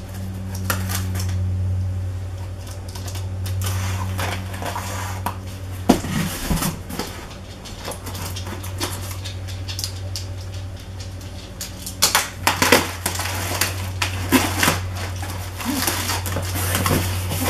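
A knife slitting the tape on a small cardboard box, with scraping, scratching and clicking cardboard, busier in the last few seconds as the box's flaps are pulled open. A steady low hum runs underneath.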